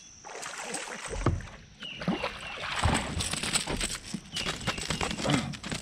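A hooked largemouth bass splashing at the surface beside a kayak, with water sloshing and irregular knocks and rattles of the landing net and gear against the hull as it is brought in.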